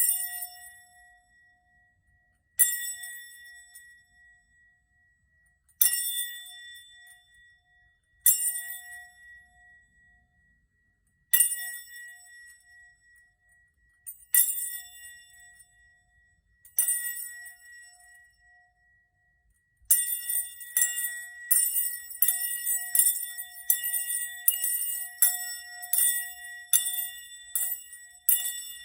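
Small high-pitched bell struck about every three seconds, each strike ringing out and fading before the next. About two-thirds of the way through it is rung rapidly and continuously, a steady jingling.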